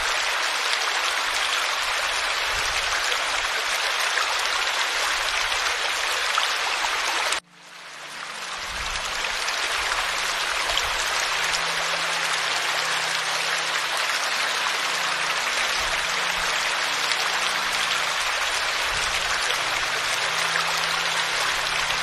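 Small forest stream spilling over rocks into a pool: steady rushing, splashing water. About seven seconds in, it cuts out abruptly and fades back up over a couple of seconds.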